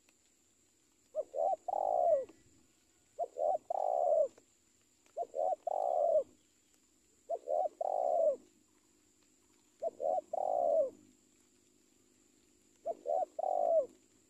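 Spotted dove cooing: six calls about two seconds apart, each two short notes followed by a longer, louder note that falls away at the end.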